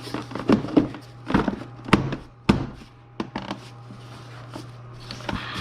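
Handling knocks and clunks of a plastic engine-bay part being worked into place, bottom edge first: about half a dozen sharp knocks in the first three and a half seconds, then quieter rubbing.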